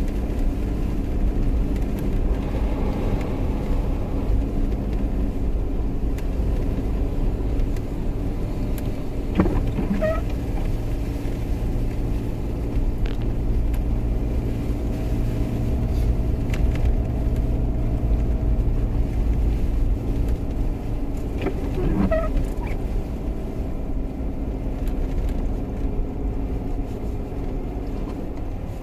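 Jeep engine running steadily with a low, even drone. Two brief high-pitched chirps cut in, one about ten seconds in and another some twelve seconds later.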